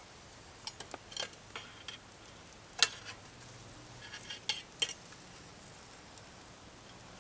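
Metal tongs and a fork clinking against a wire grill grate and a metal bowl as grilled pork chops are lifted off a campfire grill: a string of light clicks, the sharpest about three seconds in and a quick cluster near five seconds.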